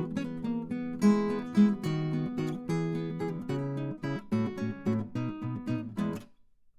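Background music: acoustic guitar picking and strumming, which stops about six seconds in, with a near-silent gap before a softer passage begins.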